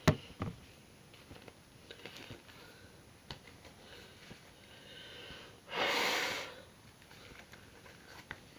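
A person's single loud breath, a rushing sigh or snort lasting under a second, about six seconds in, with two sharp knocks just before it at the very start.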